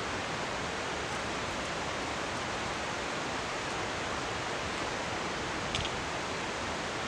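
Steady rushing of the Carbon River, a glacial meltwater river running over a rocky bed.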